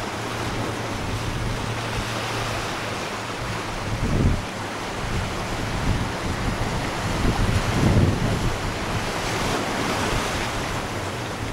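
Wind buffeting the microphone over a steady wash of sea and surf, with stronger low gusts about four and eight seconds in.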